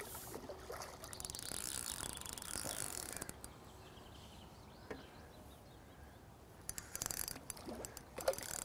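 Fishing reel's clutch (drag) ticking rapidly as a hooked carp pulls line off it, in a long run over the first three seconds and shorter runs later on.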